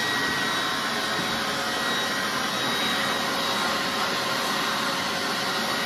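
Cordless handheld leaf blower running steadily, a rush of air with a high motor whine, blowing into a wet dog's thick coat to dry it.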